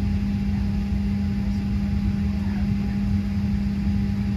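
Steady drone inside a parked airliner's cabin: the ventilation air running with a constant low hum and a fainter higher tone, unchanging throughout.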